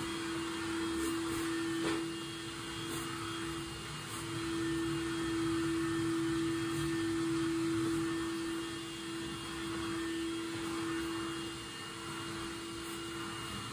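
Vacuum cleaner running in another room: a steady motor hum over a rushing hiss, wavering a little in loudness.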